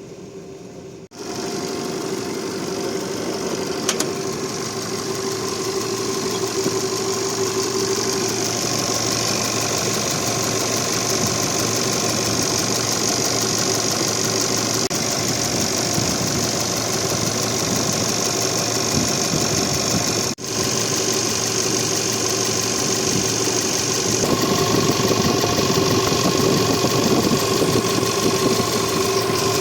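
Foton Miler 2.6 light truck's diesel engine idling steadily, getting a little louder about three-quarters of the way through.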